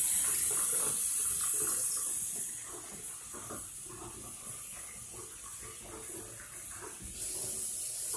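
Water running with a steady hiss, louder at first, dropping after about two and a half seconds and rising again near the end.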